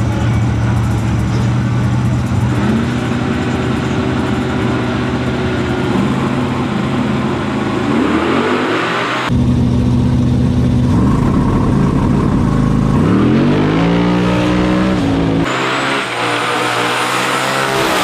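Drag race car engines revving hard, the pitch climbing and dropping several times with abrupt breaks. Near the end a car launches down the strip at full throttle.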